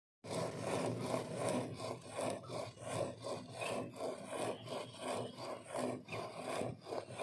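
Water buffalo milked by hand: rhythmic jets of milk squirting into a bucket of foamy milk, about two to three squirts a second.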